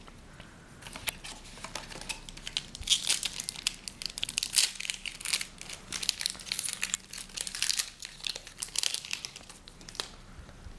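Foil wrapper of a hockey trading-card pack crinkling and tearing as it is opened by hand, a dense run of sharp crackles that is loudest midway and stops about ten seconds in.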